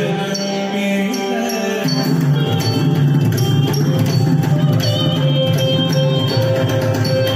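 South Indian classical music accompanying a Bharatanatyam dance, with held pitched notes and percussion; the low notes shift about two seconds in.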